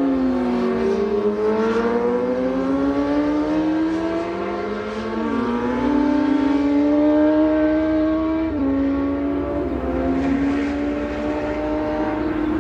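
Car engine running hard on a racing circuit. Its pitch falls over the first second, then climbs under acceleration, with sudden drops about five and eight and a half seconds in, as at gear changes.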